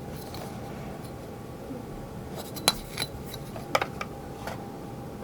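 A few light clicks and clinks of small hard tools and plastic parts being handled on a workbench while a toy part is measured. They come scattered from about two and a half to four and a half seconds in, the sharpest near the start of that stretch.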